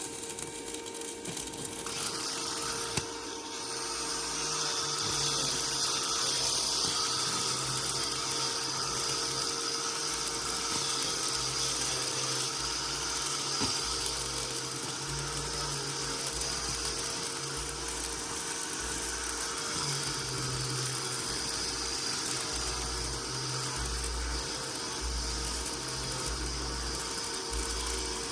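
Handheld power tool running steadily with a high whine, a metalworking tool of the kind used to clean up steel pipes.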